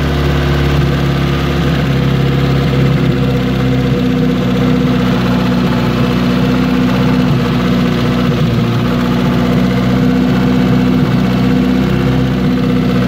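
Car engine idling steadily under the open bonnet. The uploader says you can hear that this engine will not last much longer.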